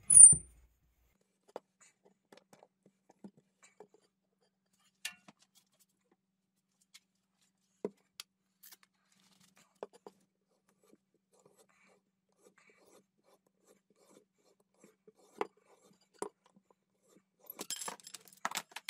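Pipe cutter being turned around aluminium tubing. There is a short high squeak at the start, then scattered faint clicks and ticks, and a denser run of crunching clicks near the end.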